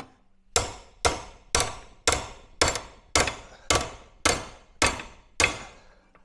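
Hammer striking a metal bracket strip clamped in a bench vise, bending it to shape: ten even blows about two a second, each with a short metallic ring.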